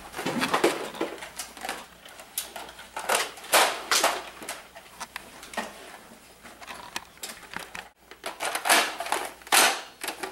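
Plastic clatter and clicks of Nerf foam-dart toy blasters being picked up and handled, with irregular knocks and rustling.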